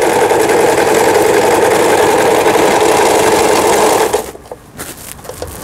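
Janome JF1014N household sewing machine running steadily as it sews an overlock stitch, newly repaired and stitching properly again, then stopping about four seconds in. Faint handling of the fabric follows.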